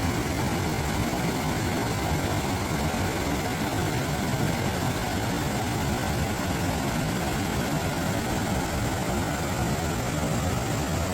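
Waterfall: a steady rush of falling water with a deep rumble underneath, unchanging throughout.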